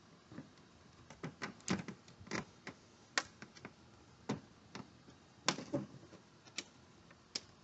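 Plastic tail-light housing being fitted back into place by hand. It gives a string of irregular light clicks and taps, with a few sharper knocks.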